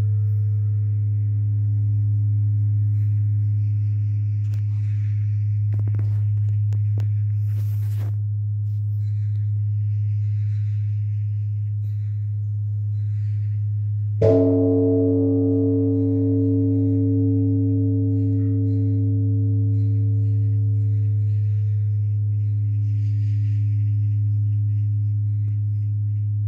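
Large Korean Buddhist temple bronze bell (beomjong) ringing with a deep, long-sustained hum. It is struck once, about halfway through, by its swinging wooden log striker, and fresh overtones ring out and slowly die away over the hum. The strokes announce the temple's service time.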